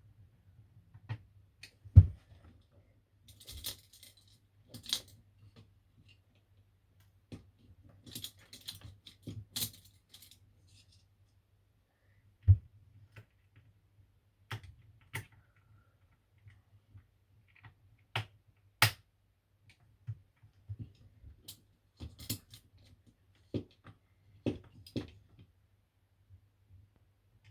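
Small screws and a screwdriver being handled on a laptop's bottom cover while the screws are put back: irregular small clicks, taps and brief scratchy clatters, with sharp knocks about two seconds in and about twelve and a half seconds in.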